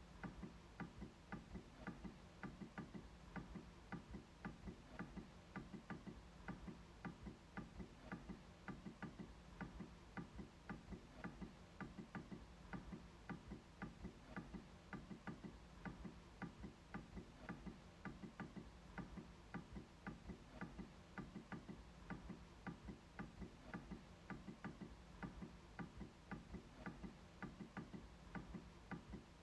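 MacBook trackpad being clicked over and over: faint, quick, evenly spaced clicks, about three a second.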